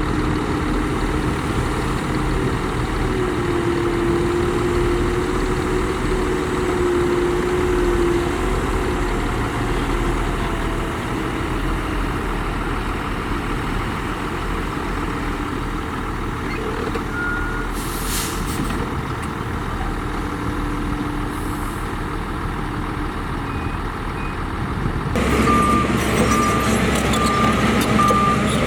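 Heavy diesel earthmoving machinery running steadily, with a low engine hum that rises a little in pitch early on. A short hiss like an air-brake release comes about two-thirds of the way through. Near the end the sound jumps louder and a truck's reversing alarm beeps repeatedly.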